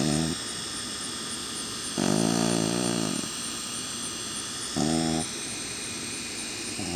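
Sleeping beagle snoring: pitched snores about every two to two and a half seconds, the one about two seconds in the longest at over a second.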